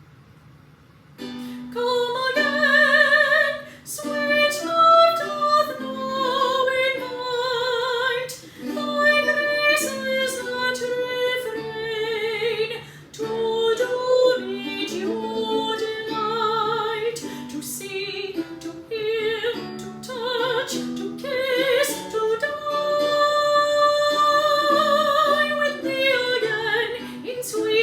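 A woman singing an early English lute song in a classical style with marked vibrato, accompanied by plucked strings. The singing and playing start about a second in, after a moment of quiet room noise.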